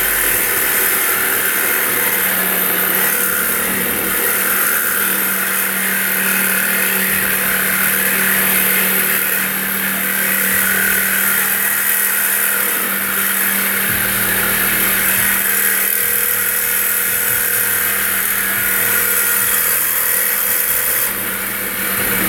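Electric power saw cutting steadily through a car's steel exhaust pipe to take off the catalytic converter, on a blade that is going dull.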